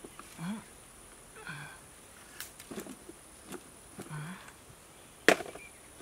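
A hand digging tool striking into soil and roots: a few small knocks, then one sharp strike near the end. A faint steady high whine runs under it, with a few soft short sounds.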